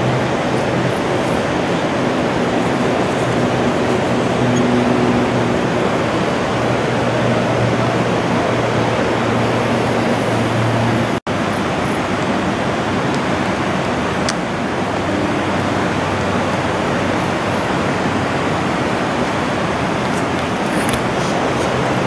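Steady, loud rushing noise with a faint low hum under it. It cuts out for an instant about eleven seconds in, then carries on unchanged.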